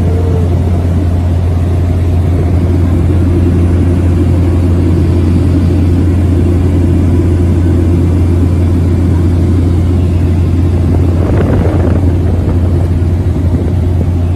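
Steady, loud drone of a small propeller plane's engine and propeller, heard inside the passenger cabin in flight.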